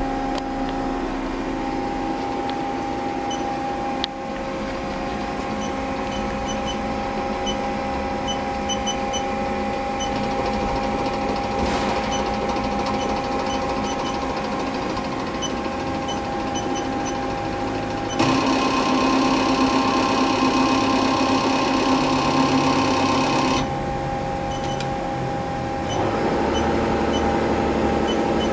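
Haas TL-15 CNC lathe running under power: a steady electric whine and hum from the machine's motors and drives. About 18 seconds in it turns louder and higher for several seconds, drops back, then rises again near the end.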